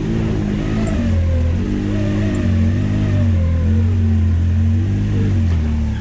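Can-Am Maverick side-by-side's engine running at low revs, its pitch shifting a little up and down.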